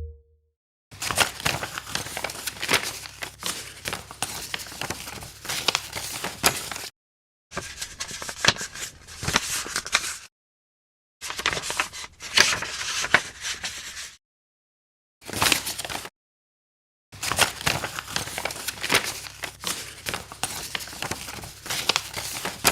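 A sheet of paper being folded and unfolded, crinkling and crackling with sharp creasing clicks. There are five separate takes, each from about one to six seconds long, with dead silence between them.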